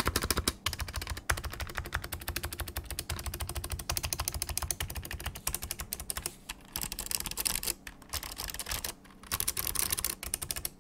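Fast continuous typing on a Smith + Rune Iron180 mechanical keyboard with click-modded dampened cream Alps switches on a stainless steel plate, rapid key clicks with a few short pauses, stopping near the end.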